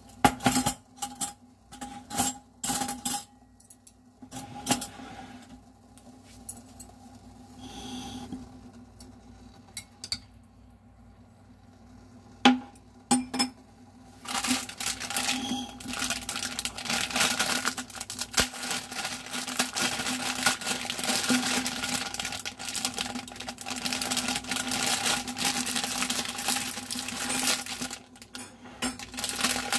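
Scattered clinks and knocks around a glass saucepan on a glass-ceramic cooktop. From about halfway, continuous crinkling of a plastic instant-ramen packet being handled.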